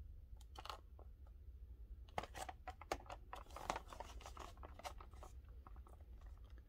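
Faint scratching, crinkling and small clicks of a plastic blister-card package being handled and turned over in the hands.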